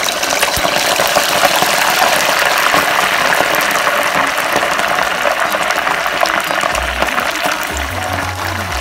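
Pieces of boiled goat meat deep-frying in hot coconut oil in a deep pot: a loud, dense, crackling sizzle as the oil bubbles hard around the wet meat.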